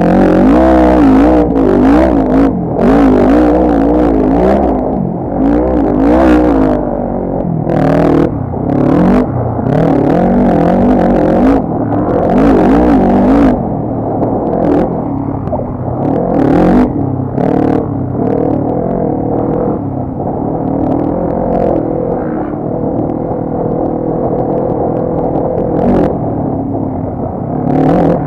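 ATV engine running under load, revving up and down repeatedly as it is ridden, with frequent sharp knocks and clatter over it.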